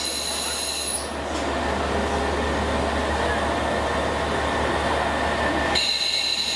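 KiHa 47 diesel railcars pulling out of a station and rolling slowly past. The noise of the wheels and cars is steady, with the diesel engine running low underneath.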